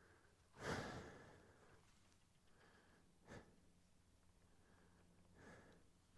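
Near silence, broken by a short breathy rush about a second in, like a person exhaling close to the microphone, and a brief click a little past the middle.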